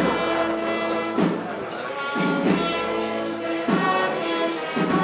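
Wind band playing a slow processional march: sustained brass and woodwind chords over a drum stroke about every second and a quarter.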